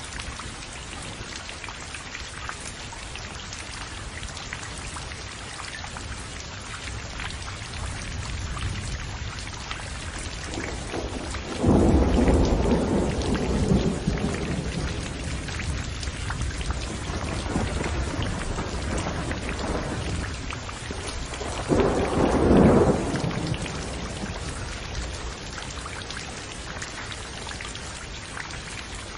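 Steady heavy rain with two loud claps of thunder, the first about halfway in and rumbling on for a few seconds, the second shorter, near the end.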